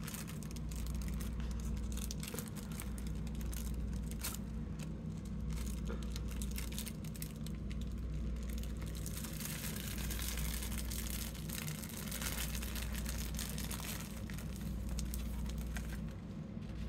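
Thin art tissue being peeled off a paint-covered gel printing plate, the paper rustling, with the rustle thickest a little past the middle. A steady low hum runs underneath.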